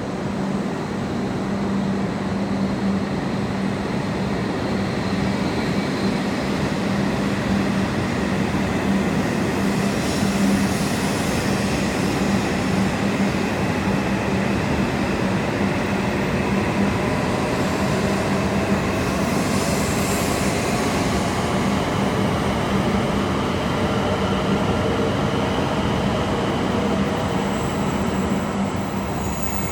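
E7 series Shinkansen pulling out of the station and gathering speed as its cars roll past close by. A steady rumble of wheels and running gear sits under a motor whine that rises slowly as the train speeds up.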